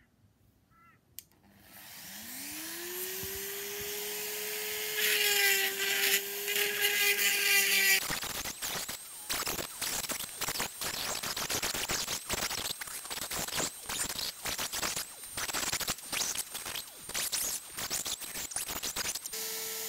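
A small corded power tool starts up about two seconds in with a rising whine, then runs steadily with its bit grinding into a soft aerated concrete (AAC) block. From about eight seconds the whine stops and gives way to rapid, irregular scraping and grinding as the bit is worked into the block.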